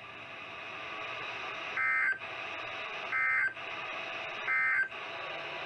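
Three short bursts of Emergency Alert System end-of-message data tones, the warbling digital code that closes an EAS alert or test, heard over NOAA Weather Radio about a second and a half apart. A steady radio hiss sits under and between them.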